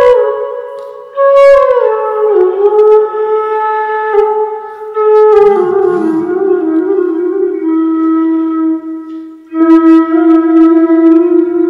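Background music: a slow wind-instrument melody of long held notes stepping down in pitch, breaking off briefly about a second in and again about nine seconds in.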